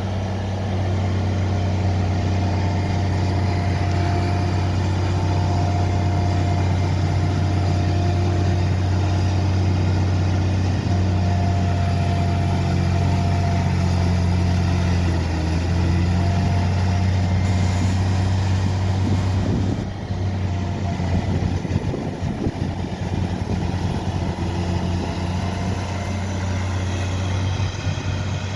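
Heavy engine of demolition machinery running with a steady low drone. About two-thirds of the way through it turns rougher and more uneven.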